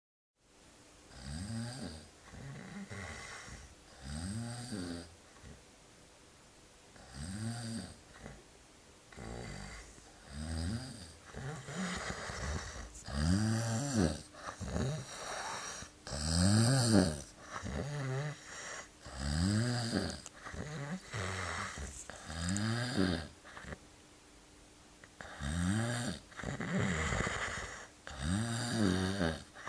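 A man snoring loudly and heavily, a snore every one to three seconds, each rising and then falling in pitch. The uploader puts the heavy snoring down to a night of drinking.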